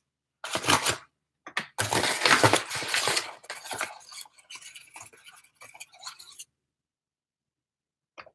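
Paper flour bag crinkling and rustling as it is handled and opened, in several bursts over the first few seconds, then fading off.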